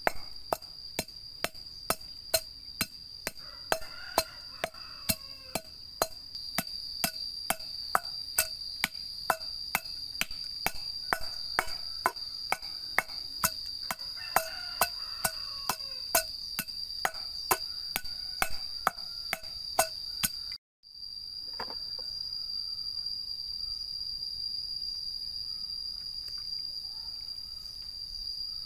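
Knife chopping on a wooden board in a steady rhythm of about two to three strokes a second, over the steady high drone of insects. The chopping stops abruptly about 21 seconds in, leaving only the insect drone.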